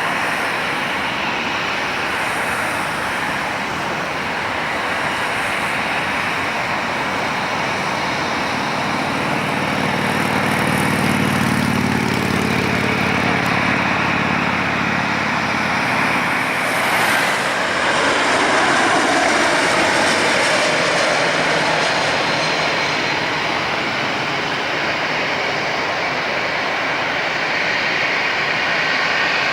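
Airbus A220-300 airliner's Pratt & Whitney PW1500G geared turbofan engines, a steady loud rushing jet noise. A low steady hum joins in about eight seconds in and cuts off suddenly near the middle.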